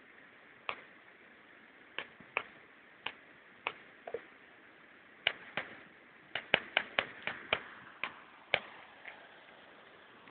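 Irregular sharp clicks and snaps over a faint steady hiss, with a quick run of them about six to seven seconds in.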